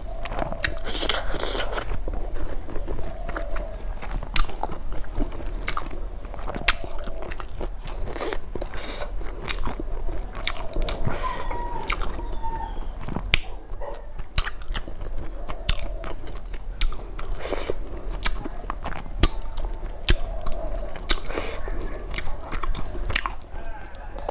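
Close-miked eating: steady chewing and biting with crunches and many wet mouth clicks and lip smacks, and a few brief hums.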